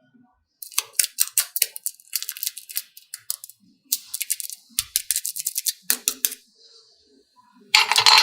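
Scissors snipping in quick runs of sharp clicks, two runs of a few seconds each. A loud, dense burst of sound comes in near the end.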